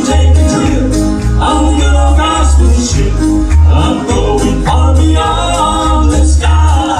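Band playing a country gospel song: singing over guitar and a steady, pulsing bass beat.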